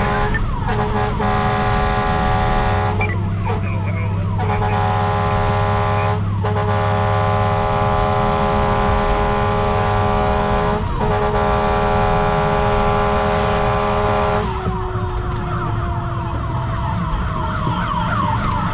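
Fire engine's emergency sirens sounding continuously: a steady held tone that breaks and restarts about every four to five seconds, with a faster warbling siren over it at times.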